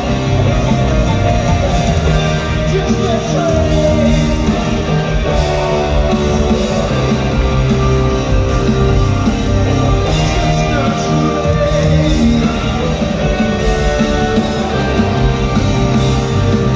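Rock band playing live and loud, with electric guitar.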